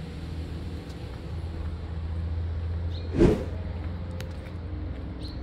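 A motor vehicle's engine running steadily with a low hum, with one short, loud burst of noise a little over three seconds in.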